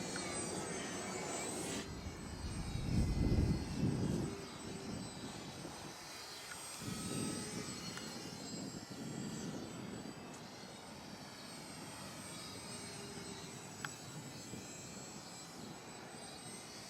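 Small electric RC airplane's motor and propeller whining high overhead, the pitch rising and falling as the plane manoeuvres. Loud low rumbling noise comes in twice in the first half.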